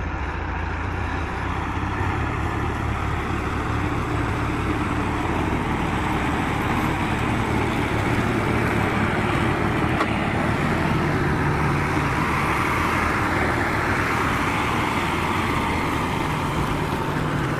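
Heavy vehicle engine running steadily with a low rumble; a steady low hum comes in about ten seconds in.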